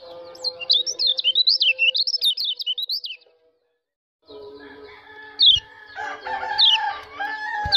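White-eye (pleci) giving rapid chattering 'ciakan' calls: a quick run of high up-and-down notes for about three seconds. After a second of silence, single sharp downslurred high notes come about once a second over steady background tones.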